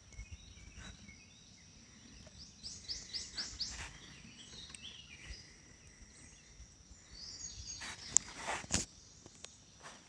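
Riverside ambience: a steady high insect drone, with a bird singing a quick run of about five descending chirps a few seconds in and a shorter phrase later. About eight seconds in come two short, sharp knocks, the loudest sounds here.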